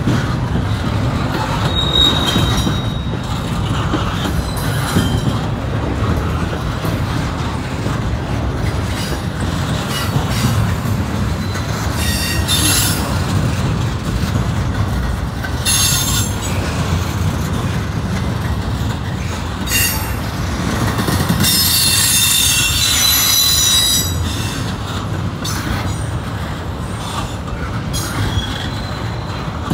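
Double-stack intermodal container train rolling past, a steady rumble of wheels on rail. Wheel flange squeal breaks in several times as the cars take the crossover from one track to the other, the longest and loudest squeal lasting two to three seconds about two-thirds of the way in.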